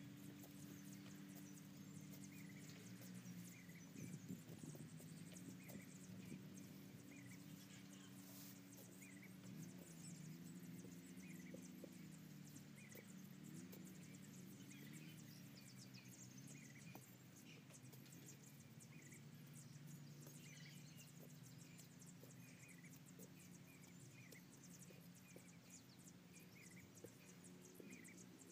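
Faint, irregular thuds of a long-handled digging bar chopping into dry paddy soil at a rice-field crab burrow. Under them runs a short high chirp repeated about once a second, over a low hum that wavers in pitch.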